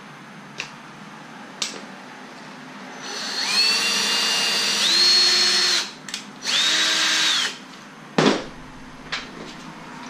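Cordless drill running into 1.5-inch PVC pipe to fasten a rubber rod holder: a few light clicks, then two runs of motor whine, each rising in pitch as it spins up, the first about three seconds long and the second about one. A sharp knock follows near the end.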